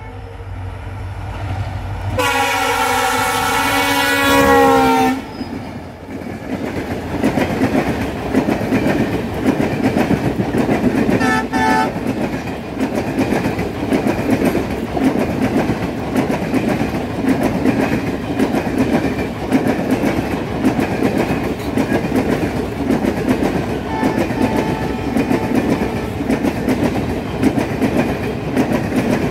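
WDP-4 diesel locomotive's multi-tone horn sounding for about three seconds as it approaches, its pitch dropping as it passes. The express then rushes by with a loud steady rumble and rhythmic clatter of coach wheels over the rails.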